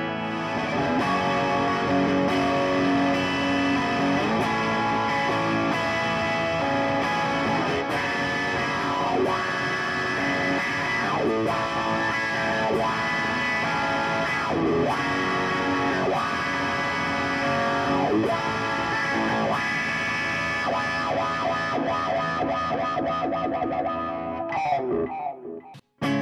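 Semi-hollow electric guitar fitted with Stonewall Slutty Wolf H90 pickups (humbucker-sized P90s), played through an amp: a flowing phrase of single notes and chords with some bent notes. The playing stops for a moment near the end.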